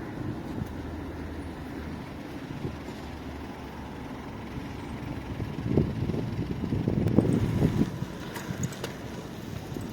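Low rumble of a motor vehicle running, swelling for a couple of seconds past the middle, with a few faint clicks near the end.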